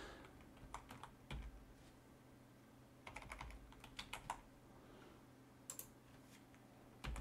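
Faint computer keyboard typing in short runs of keystrokes: a few near the start, a quick burst in the middle and a couple more near the end. Under the keystrokes is a faint steady low hum.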